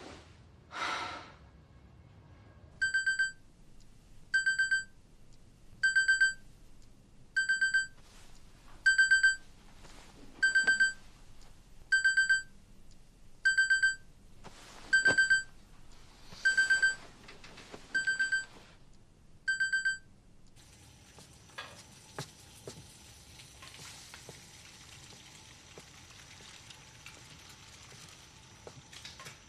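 A telephone ringing with a high electronic trill, about a dozen rings spaced roughly a second and a half apart. It stops about two-thirds of the way through, leaving a faint hiss with a few soft clicks.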